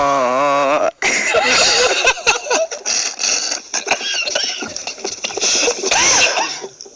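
A long, wavering 'aaaa' voice held at one pitch, breaking off about a second in, then a jumble of speech-like sounds with pitch glides and clicks.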